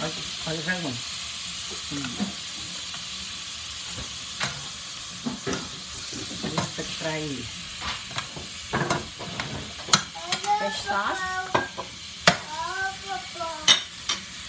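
Chopped raw meat sizzling in oil in a frying pan as it is stirred with a spatula, with sharp scrapes and taps of the spatula against the pan every few seconds.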